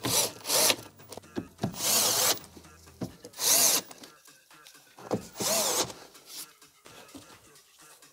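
Cordless drill-driver driving screws to fasten a speaker grille, running in about five short bursts of under a second each, the last about six seconds in.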